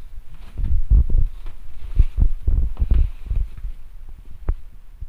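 Plastic packaging on a parcel being handled and pulled: irregular dull thumps and rustling of air-column wrap and plastic film, with a sharp knock near the end.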